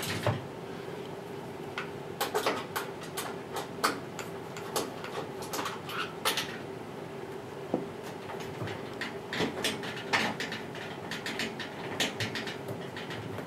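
Irregular clicks and small metallic knocks from a screwdriver working on the door hinge screws of a front-loading washing machine, over a steady low hum.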